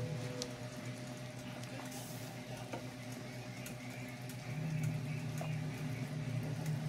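Water boiling in a pot of corn cobs: bubbling with scattered small ticks and pops over a steady low hum that grows louder about four and a half seconds in.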